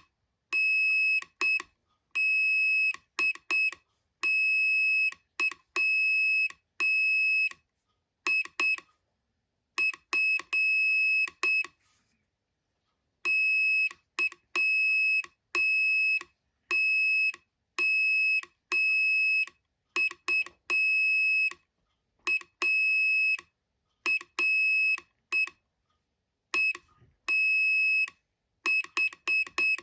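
Hand-keyed Morse code: a single high-pitched tone switched on and off in short dots and longer dashes, with a faint click as each beep starts and stops. There is a longer pause about twelve seconds in.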